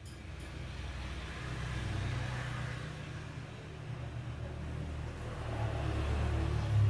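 Domestic cat purring, a low pulsing rumble that swells and eases with its breathing.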